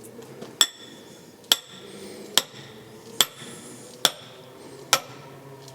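Hammer driving a pipe into a wooden track tie: seven steady, evenly spaced blows a little under a second apart, each a sharp clang with a short ring.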